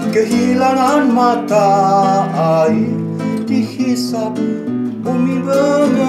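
A man singing to his own nylon-string classical guitar, which he strums in sustained chords. His voice breaks off for a couple of seconds in the middle while the guitar carries on.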